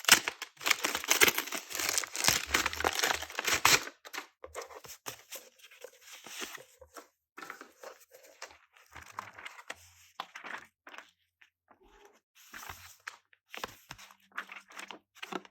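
Planner packaging crinkling and tearing as it is unwrapped by hand: a dense spell of crackling for about the first four seconds, then scattered quieter rustles.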